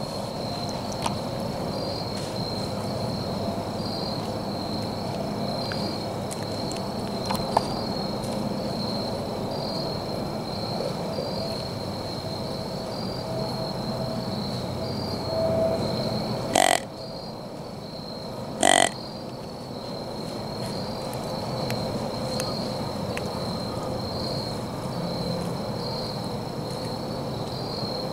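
Insects chirping steadily in a high, pulsing trill over a dull rustle of wind in the woods. Two brief sharp sounds come about two seconds apart, roughly two-thirds of the way in.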